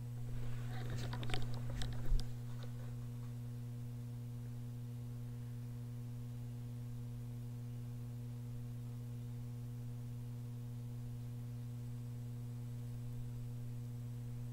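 Steady low hum, with a brief patch of rustling and clicks in the first two seconds.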